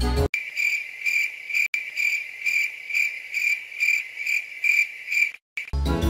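Cricket chirping: a high, pulsed trill repeating about twice a second with no other background, starting and stopping abruptly as the music cuts out and returns. It is a cricket sound effect edited in.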